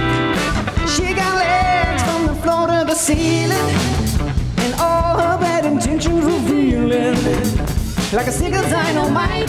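Live disco band playing: a woman singing lead over electric guitars, bass guitar and drums.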